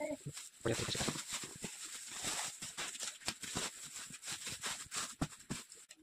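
Thin plastic wrapping crinkling and rustling in irregular crackles as a pair of shoes is wrapped and pushed back into its box.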